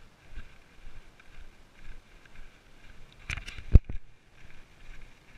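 Footsteps and trekking-pole taps on a dirt track, in a steady walking rhythm of about two a second. Past the middle comes a short cluster of sharp knocks, the loudest a single hard thump.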